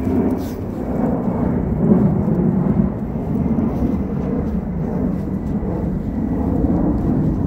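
Strong gusting wind, around 50 mph, buffeting the microphone: a loud, low rushing noise that rises and falls without letup.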